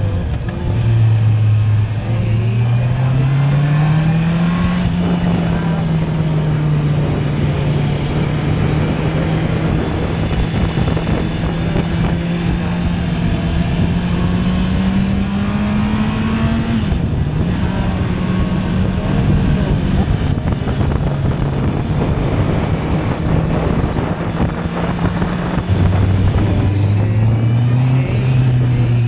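Honda CB650R's inline-four engine on its stock exhaust, pulling up through the revs and then running steadily at higher revs under way. The pitch dips briefly about halfway through, falls back near the end, then starts to rise again, all over a steady rush of noise.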